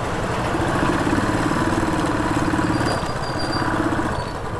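Motorcycle engine running steadily at low road speed, easing off slightly about three seconds in and then picking up again.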